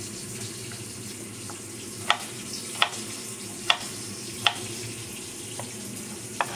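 A chef's knife chopping cucumber on a wooden cutting board: about six sharp knocks of the blade on the board, roughly one every three quarters of a second, beginning about two seconds in. A steady hiss runs underneath.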